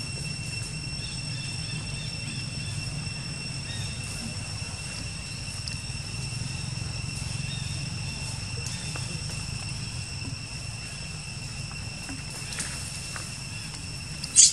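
Outdoor ambience among the trees: a steady high-pitched whine with a low hum beneath it, then one brief loud sharp sound near the end.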